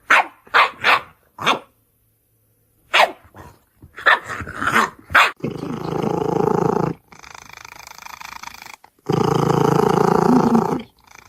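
Dog barking in a series of short, sharp barks, then growling in two long stretches.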